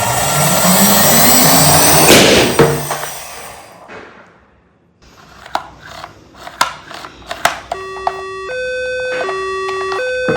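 A rising rush of noise builds to a loud bang about two seconds in and then dies away. A few sharp clicks and knocks follow. From about eight seconds a toy emergency vehicle's two-tone hi-lo siren sounds, alternating between two notes.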